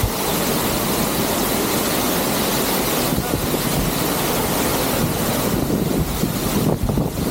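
Steady, loud rush of a large waterfall's falling water, an even noise across all pitches.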